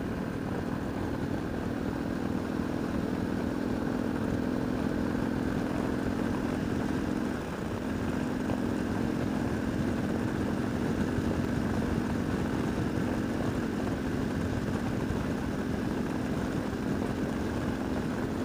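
Motorcycle engine running steadily under way, over a constant rush of wind and road noise. About seven seconds in, the engine note dips briefly, then picks up again.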